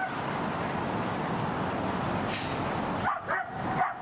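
A dog giving a few short, high yelps about three seconds in and once more near the end, over a steady background hiss.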